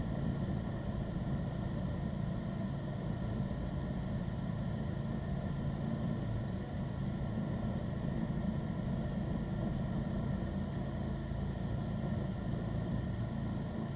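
John Deere lawn tractor engine running steadily while the tractor drives forward, pushing snow with a front push blade. The engine is picked up close, from the hood.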